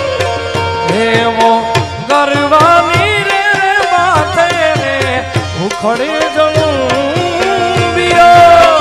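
Tabla and dholak playing a fast, busy folk rhythm under a melodic lead that slides and wavers in pitch.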